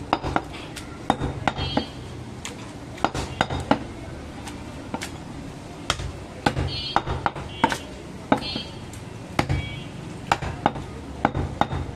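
Irregular sharp taps and knocks of a butcher's knife against a wooden log chopping block as goat leg meat is trimmed and sliced.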